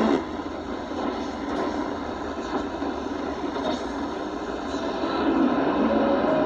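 Shortwave static hissing from a Panasonic RF-B300 portable receiver's speaker, tuned in SSB to the weak RWM Moscow time-signal frequency on 9996 kHz, with faint steady whistles in the noise.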